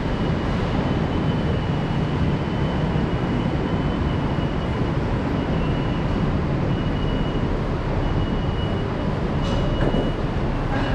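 Steady hum and rumble of a standing Avanti West Coast train in a station hall, with a thin high whine that comes and goes.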